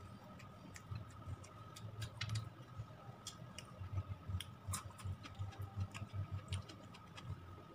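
Close-up eating sounds: scattered small clicks and smacks of chewing with the mouth closed and fingers picking food off a plate, over a low throbbing hum.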